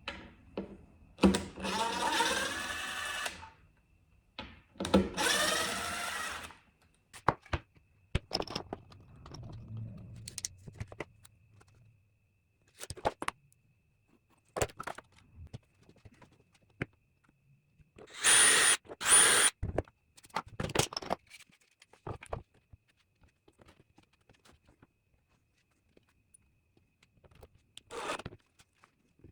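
Cordless drill/driver running screws in two bursts of about two seconds each, its motor whine rising as it spins up. These are followed by scattered clicks and knocks of hardware being handled, and two more brief loud bursts a little past the middle.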